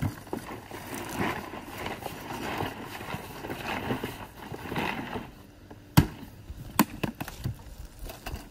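A load of boiled crawfish, with corn and potatoes, sliding and rattling inside a plastic ice chest as it is tipped and shaken to coat them in seasoning. About six seconds in, a sharp knock as the chest is set back down, then a smaller one.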